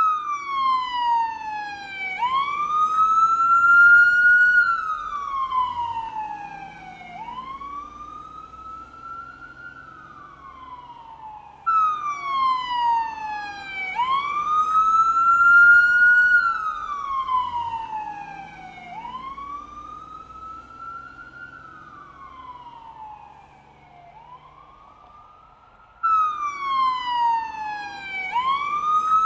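California police car siren in its wail: a slow rise and fall in pitch, about five seconds to each full cycle, growing louder and fading again. The sound breaks off and restarts abruptly twice, about 12 and 26 seconds in.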